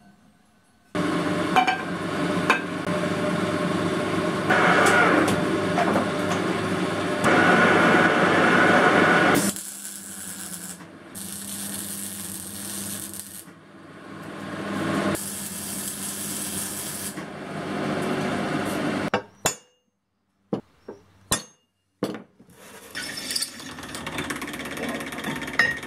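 A metal lathe starts about a second in and runs steadily, turning a rusty steel disc. Then come three bursts of arc-welding hiss and crackle. After a short pause with a few clicks, a drill press bores through the steel disc near the end.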